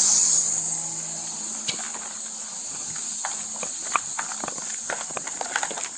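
Footsteps of a person walking at an even pace, a string of short hard steps, over a steady high-pitched hiss.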